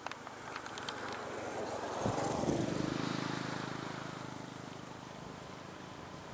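A motor vehicle passes close by, its engine pitch dropping sharply as it goes past, then a steady engine hum that slowly fades. A few sharp clicks come in the first second.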